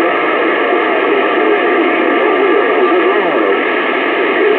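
Radio receiver hissing with steady static, with faint, garbled voices and wavering tones coming through under the noise. This is typical of weak long-distance CB skip signals.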